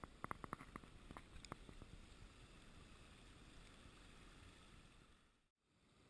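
Quiet creek ambience: a faint steady hiss of shallow water, with a quick run of small ticks in the first second and a half. The sound drops out briefly near the end.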